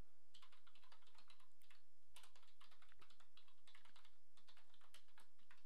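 Typing on a computer keyboard: a run of quick, irregular keystrokes.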